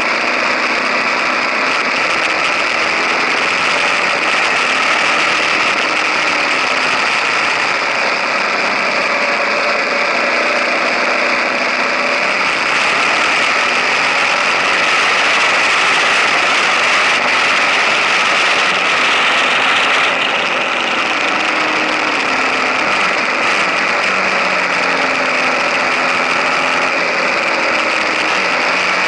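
KTM 1050 Adventure's V-twin engine running as the bike is ridden. Its pitch drifts slowly up and down with the throttle, under a steady rush of wind and road noise.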